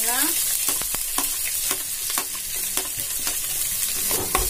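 Chopped onions sizzling in hot oil in a metal pot, with repeated clicks and scrapes of a slotted spoon stirring them against the pot and a louder knock near the end.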